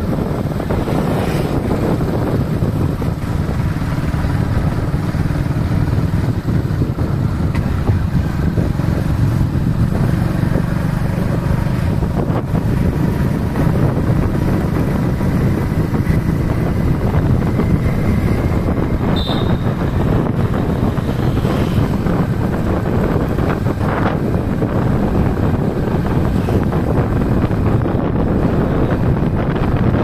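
Steady wind rush on the microphone over the engine and road noise of a moving motorcycle ride.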